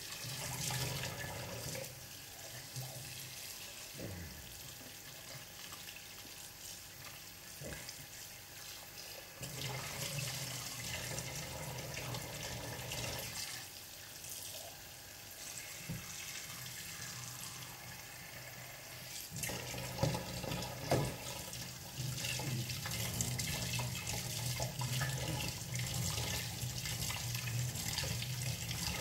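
Kitchen tap running into a sink, the water splashing and changing as hands work under the stream, with a few light knocks; it gets louder about ten seconds in and again near the end.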